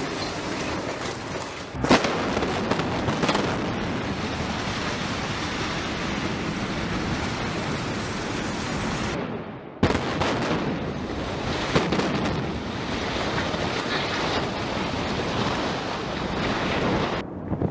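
Building implosion: sharp cracks of demolition charges, then the long rumble of the structure collapsing, mixed with heavy wind noise on the microphone. The sound breaks off briefly about nine seconds in, and another crack and rumble follow.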